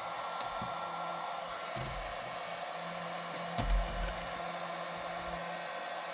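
Handheld Harbor Freight heat gun running on its low setting, a steady rush of blown hot air. A brief knock about three and a half seconds in.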